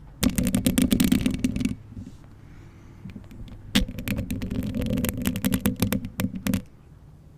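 Long-nailed hands moving, rubbing and clicking right at a bare condenser microphone, in two bursts of dense crackling: one of about a second and a half, then after a quieter stretch one of nearly three seconds.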